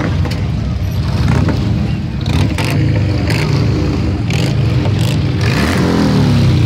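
A procession of large cruiser and touring motorcycles riding slowly past, their engines rumbling together. One engine's pitch rises and falls as it revs near the end.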